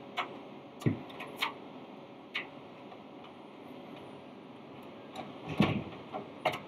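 Scattered clicks and light knocks of a motherboard being set down into a metal ATX computer case and shifted into place, with a louder cluster of knocks about five and a half seconds in.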